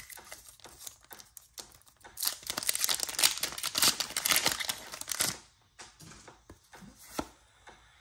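Foil wrapper of a Pokémon card booster pack crinkling and tearing as it is ripped open, in a dense stretch of about three seconds starting around two seconds in, with lighter crinkles before and after.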